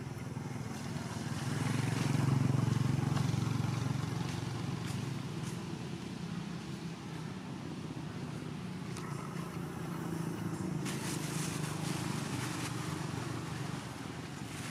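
A low engine hum from a motor vehicle, loudest about two to four seconds in, then holding steady.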